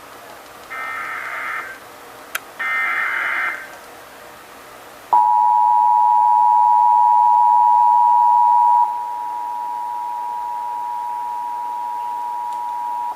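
Emergency Alert System (SAME) header: two warbling digital data bursts of about a second each, with a brief click between them, followed about 5 s in by the steady two-tone EAS attention signal (853 and 960 Hz), which drops in level about four seconds later and holds to the end. This marks the start of a Required Monthly Test broadcast.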